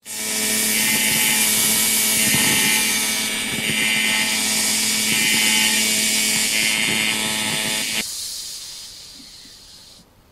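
Angle grinder running at full speed with a steady high whine, switched off about eight seconds in and winding down to a stop.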